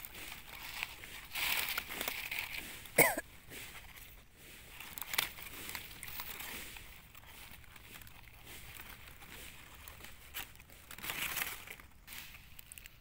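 Dry fallen leaves rustling and crunching as a hand brushes through the leaf litter, in several short bouts. A brief, sharp pitched sound cuts in about three seconds in.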